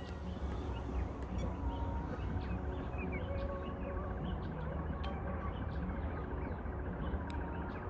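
Small birds chirping in short scattered calls over a steady low rumble, with a faint, even high whine underneath.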